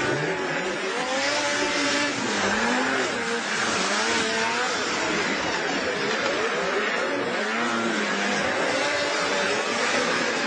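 Snowmobile engine revving, its pitch rising and falling again and again over a steady rushing noise.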